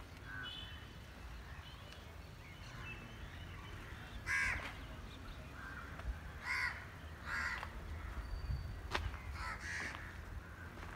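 Crows cawing: a few harsh calls a second or two apart, the loudest about four seconds in, over a low steady rumble.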